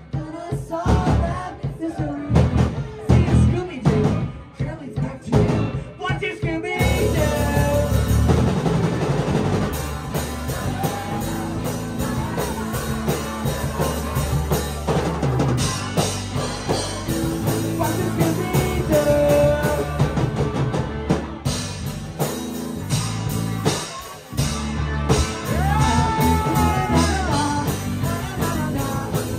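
Live rock band: a drum kit plays alone for about the first seven seconds, then bass, guitar and singing come in with the full band.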